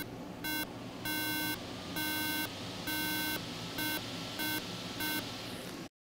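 13-inch MacBook Pro (A1278, board 820-2879) sounding its startup beep code through its speaker: the last of the first three short beeps, then three long beeps and three short beeps, the 9-beep pattern that signals a corrupt EFI boot ROM. The sound cuts off suddenly near the end.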